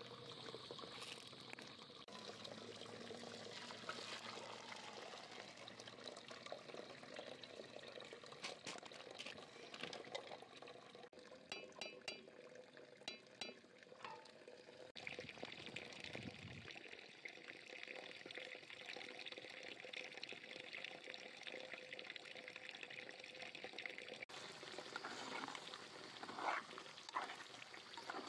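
Water pouring and trickling as a pot of boiled rice is drained.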